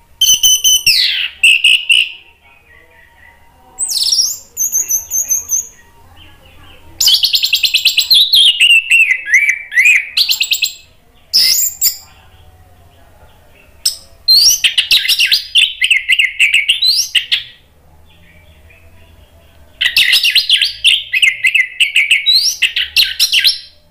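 Orange-headed thrush (anis merah) singing loudly in full song: six bursts of fast, varied trills and whistled sweeping phrases, each lasting from under a second to about three seconds, with short pauses between.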